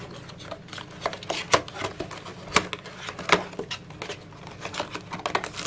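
Cardboard retail box being opened by hand: the flaps and inner cardboard scrape, rustle and tap in a string of short, irregular clicks.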